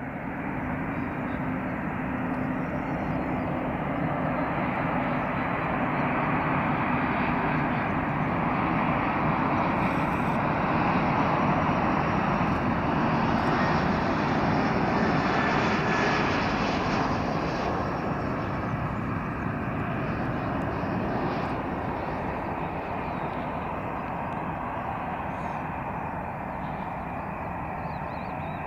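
Four-engine Airbus A340 jet on final approach, its engines running throughout. The engine noise swells as the plane comes close, is loudest and sharpest about halfway through, then gradually eases as it descends towards the runway.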